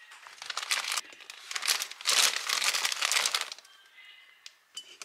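Crinkling and rustling of a packaging bag as croissants are pulled out of it, coming in bursts for about three seconds. It then goes quieter, with a couple of light clicks near the end.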